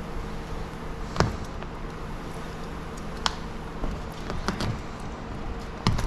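A handful of short, sharp clicks and knocks, about five scattered irregularly, over a steady low hum.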